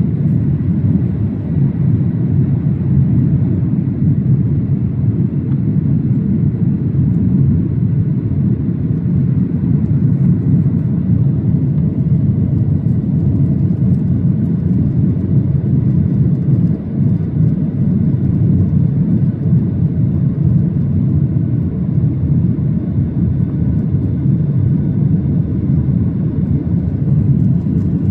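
Steady low rumble of a Boeing 737-800's engines and rushing air, heard inside the passenger cabin, with faint steady high tones.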